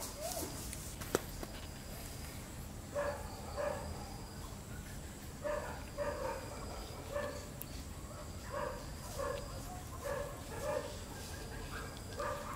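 A dog barking repeatedly, short barks often coming in pairs, starting about three seconds in.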